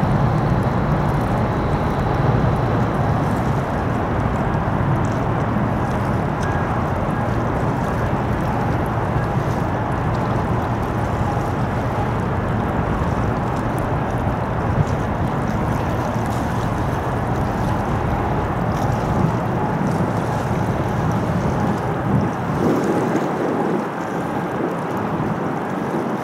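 Steady wind noise on the microphone with a wash of water and a low rumble that eases off near the end.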